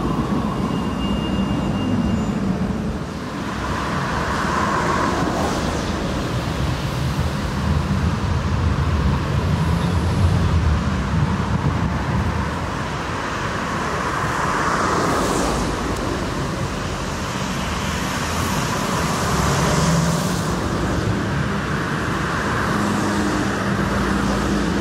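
Street traffic and trams: a tram running past close by at the start, a steady rumble of road traffic, and a low-floor tram pulling into the stop near the end.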